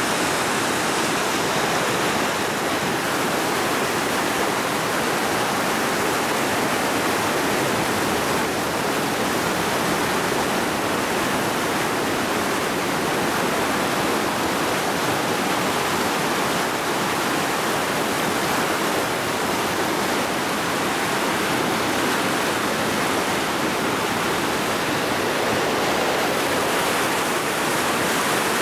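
Whitewater rapids of a slalom canoe course rushing steadily, an even, unbroken noise of churning water.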